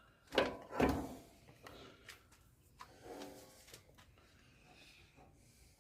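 Hand tools knocking and clinking on a wheel hub's bearing nut: two sharp knocks about half a second apart, then lighter clicks and a short pitched scrape or grunt about three seconds in.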